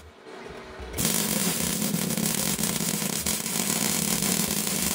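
Argon-shielded electric welding arc from a 200-amp welder working on steel box-section: a steady hiss with a low hum underneath, starting about a second in and cutting off suddenly at the end.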